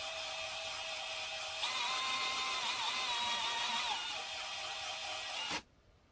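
High-speed rotary tool clamped in a lathe's toolpost, whining as it grinds the layer lines off the thread flanks of a slowly turning 3D-printed plastic worm. The whine grows louder about one and a half seconds in, wavers in pitch under load, and cuts off suddenly about five and a half seconds in.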